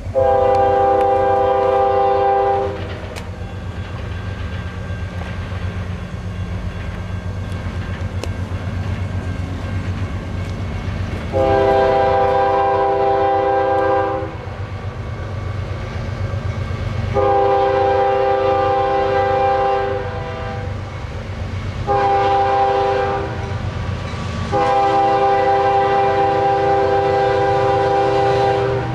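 Diesel locomotive's multi-note air horn blowing the grade-crossing signal as the train approaches: long blasts with gaps between, then a short one and a final long one still sounding at the end. A steady low rumble of the oncoming train runs underneath.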